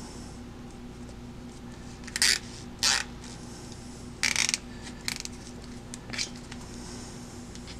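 Nylon cable ties being pulled tight around a rope tail, giving short ratcheting zips: two quick ones around two to three seconds in, then a longer one and a few smaller ones after about four seconds. A faint steady hum runs underneath.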